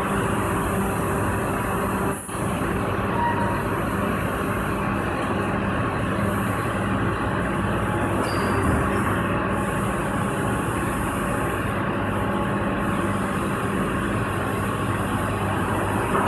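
PET preform injection molding machine running: a steady mechanical hum with a few held tones, dipping briefly about two seconds in.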